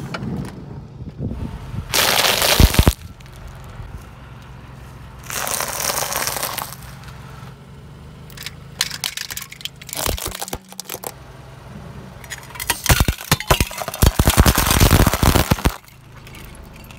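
A car tyre crushing objects one after another: several separate bursts of cracking and crunching, the last and longest a dense clatter of coloured glass tubes shattering, over a faint low engine hum.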